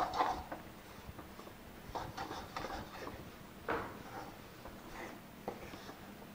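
Steel spoon stirring and scraping a dry, crumbly mix of roasted wheat flour, sesame and powdered sugar in a metal kadhai, in irregular strokes with light clinks against the pan.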